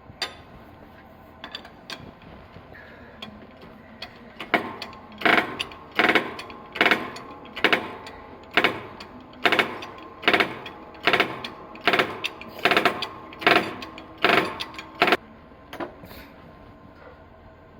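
Hammer blows on metal, a dozen or so strikes at an even pace a little under one a second, each followed by a metallic ring, with a few lighter taps before and after, as parts are knocked loose during a car rear wheel bearing replacement.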